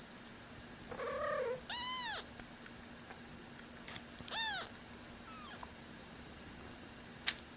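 Twelve-day-old kittens mewing: a lower, rougher cry about a second in, then two high, arching mews and a faint short one. A sharp click comes near the end.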